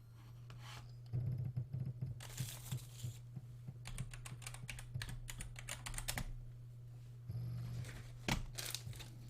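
WD My Book 8TB external hard drive running, a quite loud steady low hum that gets louder about a second in, with clusters of rapid sharp clicks over it.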